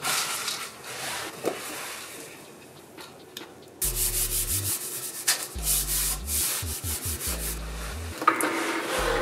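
Hands rubbing and smoothing a sheet of white cardstock down onto a tacky plastic cutting mat. There is a brief rub at first, then a run of rough rubbing strokes from about four seconds in, with dull bumps against the desk underneath.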